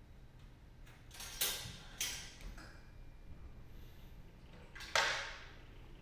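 Jukebox disc music box's automatic disc changer at work, selecting and loading a metal disc. Three mechanical clunks with a short ringing after each: about a second and a half in, at two seconds, and a louder one near five seconds.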